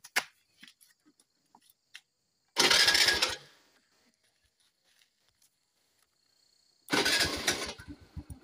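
TVS Jupiter scooter's single-cylinder engine started twice. The first start, about two and a half seconds in, runs for under a second and dies away; the second, about seven seconds in, keeps running with an even pulse.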